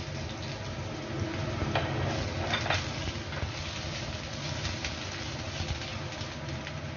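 Chopped garlic sizzling in hot oil in a stainless steel frying pan, over a steady low hum. A few light clicks and taps come about two to three seconds in as more pieces are dropped into the pan.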